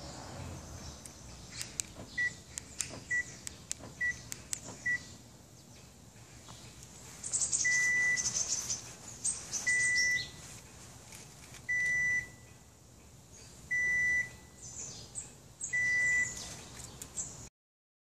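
Piezo buzzer of an X-Link 900L car alarm sounding its parking-location alert: four short chirps about a second apart, then longer single-pitch beeps repeating every two seconds, the signal that shows where the car is parked. Faint clicks accompany the early chirps, and brief rushes of high hiss come in around the later beeps.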